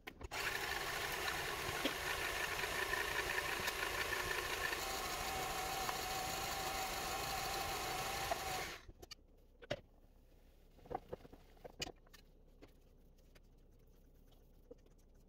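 A KitchenAid stand mixer running with its wire whisk attachment in the steel bowl, beating the wet cake ingredients. It holds a steady whir with a thin whine that changes pitch about five seconds in, then cuts off suddenly near nine seconds. A few light scrapes and taps follow as the thick chocolate batter is spooned into the cake pan.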